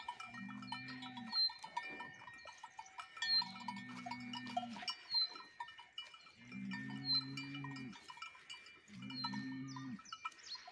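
Cowbells clanking and ringing on grazing Simmental cattle. Under them, a low drawn-out sound about a second long comes five times, every two to three seconds.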